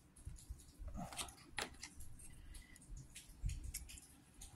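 Handling noises from opening a LEGO minifigure bag: plastic packaging crinkling, with small clicks and taps from the plastic parts, irregular and fairly faint.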